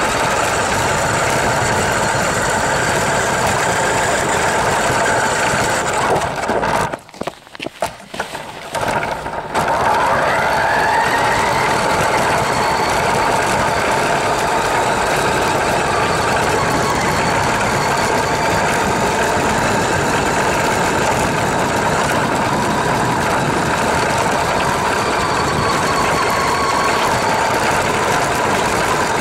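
Radio-controlled car's motor and drivetrain running with a steady whine, heard from a camera mounted on the car. It cuts out briefly about seven seconds in, then spins back up with a rising whine and runs steadily again.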